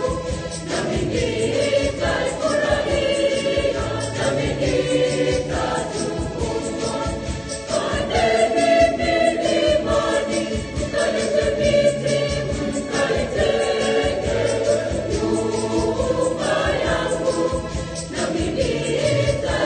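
Mixed choir of men's and women's voices singing a Swahili hymn in parts, phrase after phrase, accompanied on an electronic keyboard.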